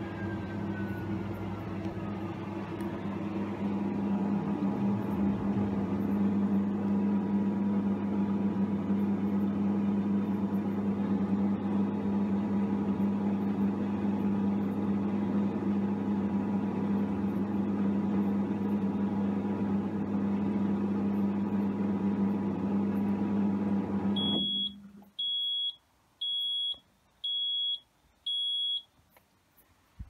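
Fisher & Paykel Pride top-loading washing machine running near the end of its spin with a steady low hum and a falling whine in the first few seconds. It stops abruptly, then five short, even, high beeps sound, marking the end of the cycle.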